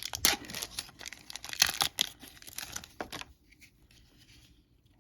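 Crinkling and tearing of a trading-card pack wrapper being opened, a run of sharp crackles for about three seconds that then stops.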